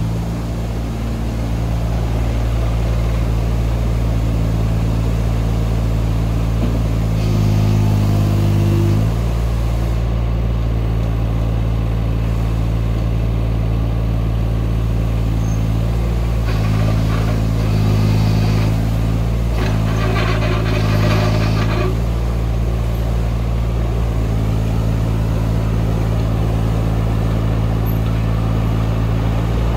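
Takeuchi TB016 mini excavator's diesel engine running steadily, with the hydraulics working as the machine swings and moves its arm. The engine note swells under hydraulic load several times, at about 7 seconds in and again around 17 and 20 seconds in.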